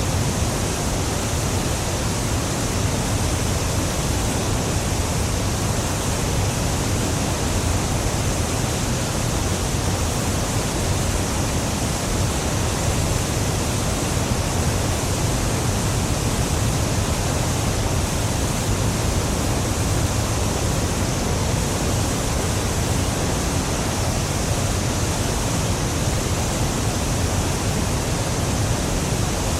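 Niagara Falls: a huge mass of water plunging, a steady, unbroken rush of noise with a heavy low rumble beneath.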